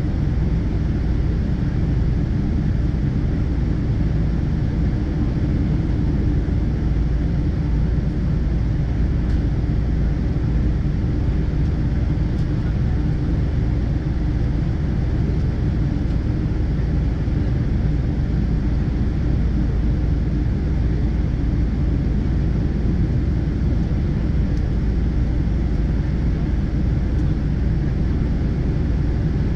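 Steady cabin noise inside a Boeing 777-200ER: an even, low rumble of the jet engines and airflow, holding at one level with no change.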